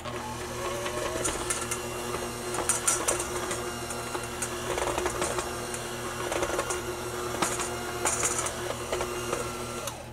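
Electric hand mixer running steadily, its twin beaters churning powdered sugar into softened cream cheese in a stainless steel bowl and rattling against the bowl at times.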